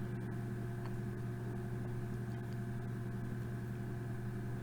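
Steady low electrical hum with a faint hiss, unchanging throughout: background room tone with no other sound.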